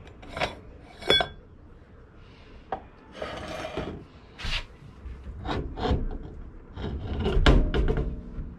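Metal knocks and clinks, one with a brief ring about a second in, as the center cap comes off a wire-spoke wheel, followed by scraping and rubbing as the wheel is worked loose. The loudest sound is a heavy rubbing thud near the end as the tyre is pulled off the hub.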